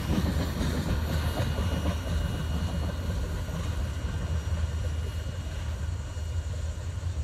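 Tail end of a long freight train rolling away, a steady low rumble that slowly fades as the last car pulls off.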